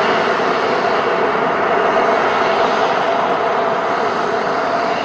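Twin miniature jet turbines of an RC F-22 Raptor model running steadily: a rushing jet noise with a constant whine and a faint high whistle over it.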